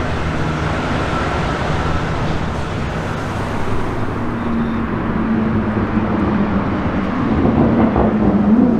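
A car engine drones steadily over road and tyre noise, with a steady pitch that comes in about halfway through and grows louder near the end.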